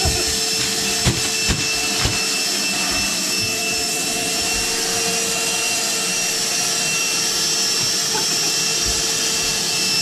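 A machine runs with a steady drone and a constant high whine, and a few sharp knocks come in the first two seconds.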